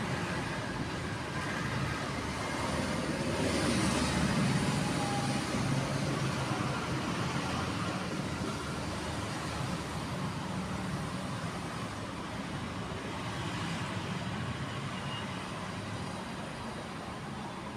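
A steady low rumble with hiss, growing louder about four seconds in and then easing off.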